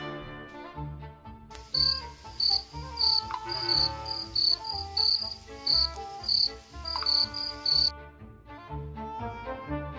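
Crickets chirping in short high chirps, two to three a second, starting about a second and a half in and stopping about eight seconds in, over soft background music with a pulsing bass line.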